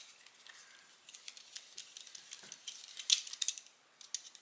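Light, irregular clicking and clatter of small metal screws, tools and plastic parts being handled on a workbench, busiest about three seconds in.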